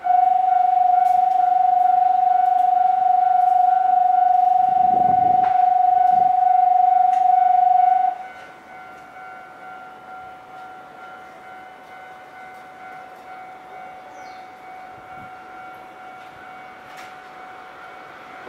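Station platform warning tone for a passing train: one steady electronic tone sounds loudly for about eight seconds, then cuts down to a much fainter tone at the same pitch that carries on.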